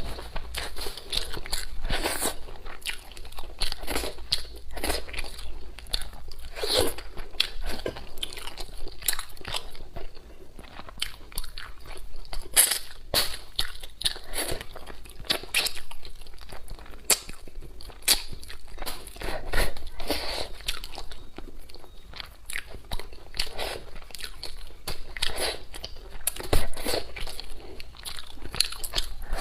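Close-miked eating: repeated crunching, biting and wet chewing of food, with frequent sharp crackly clicks.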